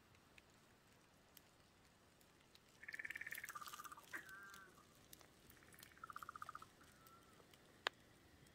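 Frogs calling: a few short, rapid pulsed trills, the first starting higher and stepping lower, with a couple of brief single notes between them. A single sharp click comes near the end.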